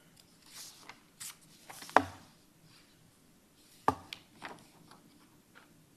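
Sheets of paper rustling and being shuffled close to a desk microphone, with two sharp knocks, about two seconds and about four seconds in.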